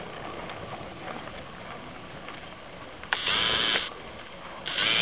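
Two short, loud blasts of steam from a 4-inch scale McLaren steam traction engine: one about three seconds in, another near the end, each under a second long and starting and stopping abruptly.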